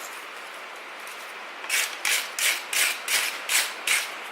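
Wire brush scrubbing forge scale off a freshly forged steel leaf, in quick back-and-forth strokes about three a second that begin a little under halfway in.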